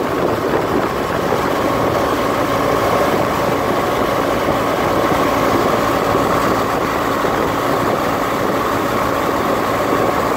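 A 1200 cc adventure motorcycle's engine running at steady cruising speed, a constant hum, mixed with the rush of wind.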